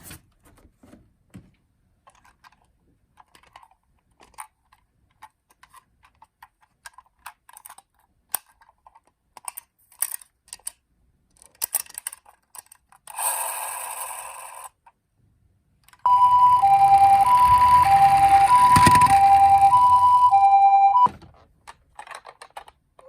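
Small clicks and a short rustle of a toy ambulance being handled and taken from its packaging. About sixteen seconds in, the toy's electronic two-tone hi-lo siren sounds loudly, alternating between two pitches for about five seconds, then cuts off suddenly.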